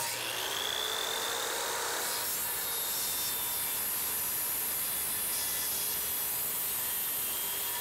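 Corded Porter-Cable circular saw spinning up, then running steadily as it rips through a veneered panel along the grain.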